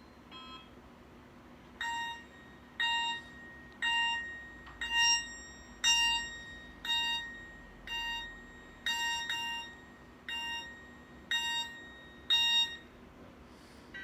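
Alcatel OT 2008G mobile phone playing one of its alarm tones through its speaker: a single-pitched electronic beep repeating about once a second, a few beeps doubled. It starts about two seconds in and stops shortly before the end.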